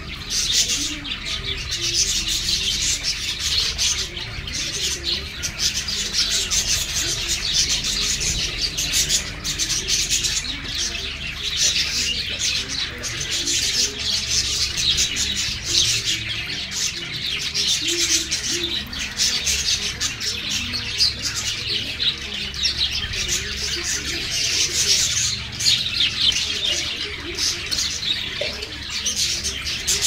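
A flock of budgerigars chattering continuously: a dense mass of rapid, overlapping chirps and warbles.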